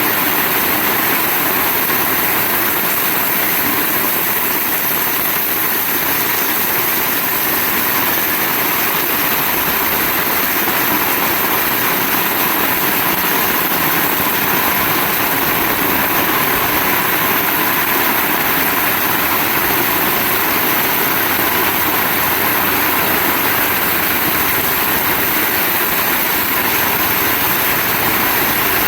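Heavy rain falling, a loud, steady, even hiss with no let-up.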